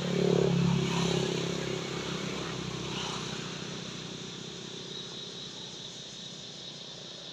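A motor vehicle's engine going by close at hand: loudest about half a second in, then fading slowly as it moves away.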